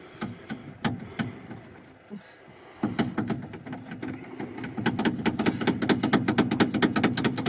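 A few separate knocks, then about three seconds in a machine starts up with a steady hum and fast, even ticking, several ticks a second.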